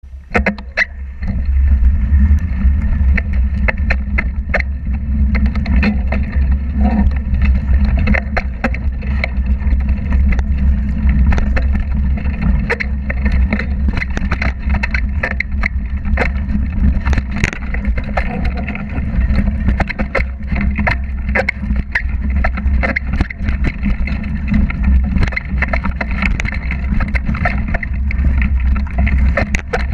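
Mountain bike ridden over a dirt trail, heard through a camera mounted on the bike: a steady low wind rumble on the microphone with frequent rattles and knocks from the bike over the ground, starting about a second in.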